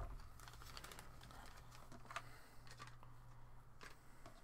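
Faint rustling and crinkling of small clear plastic zip bags being handled, with a few light clicks of small plastic pieces, clearest about two seconds in and near the end.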